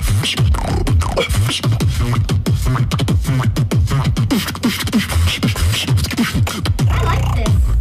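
Beatboxing: a fast, dense run of vocal kick drums and snares, the kicks heard as quick falling bass sweeps several times a second, with a held buzzing bass near the end.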